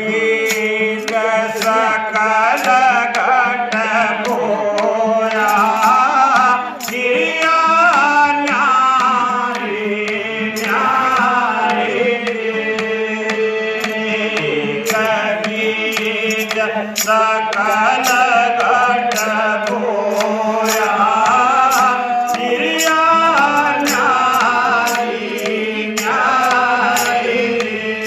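Devotional bhajan: a voice sings the melody over a steady held drone, with percussion keeping an even beat throughout.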